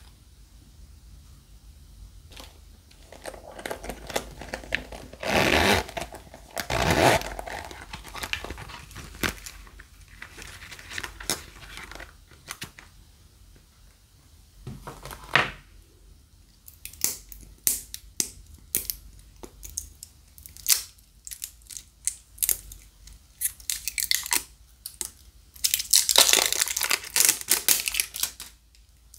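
Small plastic containers being handled, opened and tipped out by hand: a string of light clicks and taps with bursts of crinkling and rustling, loudest about five to seven seconds in and again near the end.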